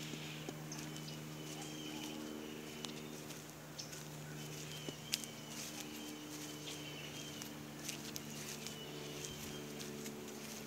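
Outdoor ambience: a steady low hum from some machine, with short high chirps repeating about once a second and scattered soft clicks and footsteps.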